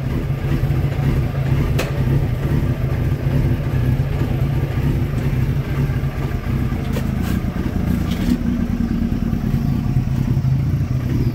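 Suzuki Hayabusa's inline-four engine idling steadily through an aftermarket Black Widow exhaust, a constant low drone with no revs.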